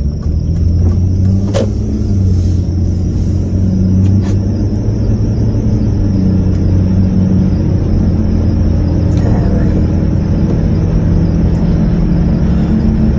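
A car being driven, heard from inside the cabin: a steady engine and road rumble with a squeak coming from near a tyre, which the driver thinks could be a wheel bearing coming loose.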